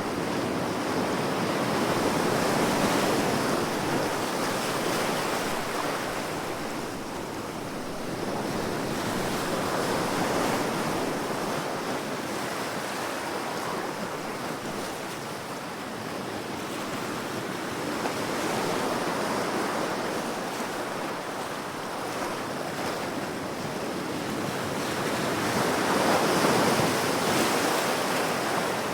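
Ocean surf washing ashore, a steady rush that swells and ebbs in slow surges about every eight seconds, the loudest swell coming near the end.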